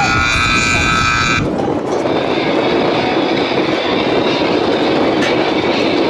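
Music that cuts off abruptly about a second and a half in, giving way to a steady loud rushing noise.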